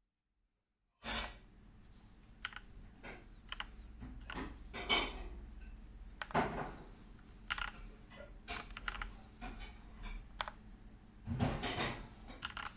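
Keychron K4 mechanical keyboard with red Gateron linear switches being typed on: irregular keystroke clacks, sometimes several in quick succession, starting about a second in over a low steady hum.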